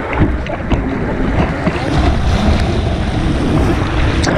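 White water rushing and splashing around a kayak, with sharp splashes of paddle strokes and wind buffeting a deck-mounted camera's microphone.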